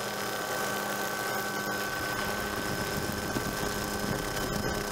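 Helicopter engine and rotor noise heard from aboard: a steady drone with constant high-pitched whines that hold the same pitch throughout.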